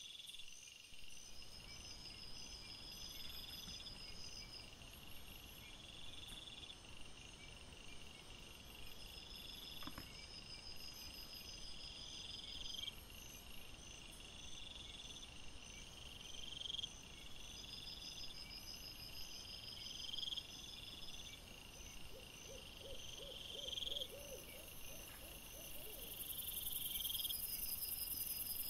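Night-time chorus of crickets and other singing insects. A swelling chirp repeats every few seconds over steadier, higher pulsed trills.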